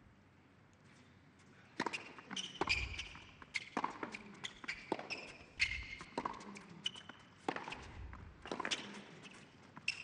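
Tennis serve and rally: after a quiet start, the ball is struck by rackets and bounces on the indoor hard court again and again from about two seconds in, with short squeaks of players' shoes on the court between the hits.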